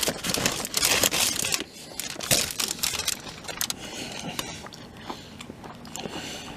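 Crinkling and crunching of food wrapping as a Chicago-style hot dog is handled, loudest in the first second and a half and again about two seconds in, then quieter crackles and clicks.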